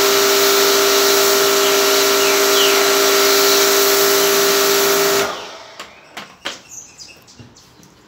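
Electric pressure washer running, a steady motor-and-pump hum under the hiss of the water jet as it blasts the skin off a scabbard fish. The sound cuts off suddenly about five seconds in, leaving a few light clicks and knocks.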